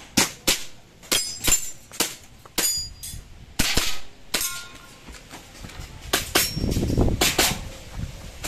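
Pistol fired in a practical-shooting stage: a string of about a dozen sharp shots, mostly in quick pairs, with a pause of a second or two in the middle.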